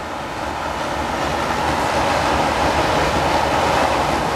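Steady rumbling noise that grows gradually louder, with no clear pitch or separate strokes.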